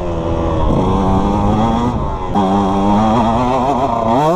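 KTM two-stroke dirt bike engine running under throttle while riding, its pitch rising and falling with the revs. The revs dip briefly about two seconds in, then climb again and rise sharply near the end.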